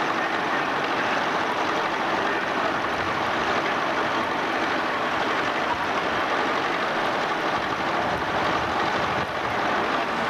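Vehicle engines running steadily, heard as one continuous even noise with no separate knocks or revs.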